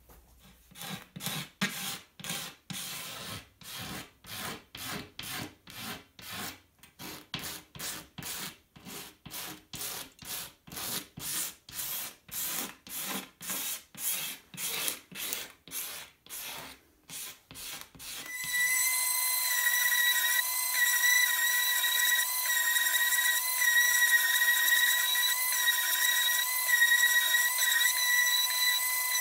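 Rapid, even hand strokes rubbing back and forth over a wooden slab, about two to three a second. About two-thirds through, a random orbital sander with a dust-extraction hose attached starts up and runs with a steady high whine.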